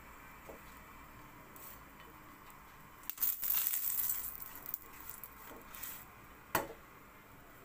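Kitchen handling noise: a rustling scrape lasting about a second, starting about three seconds in, then a few softer rustles and a single sharp knock near the end, over faint room tone.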